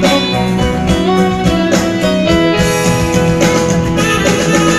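Live band music in the Batak pop style: keyboard with a plucked-string melody line, playing an instrumental passage.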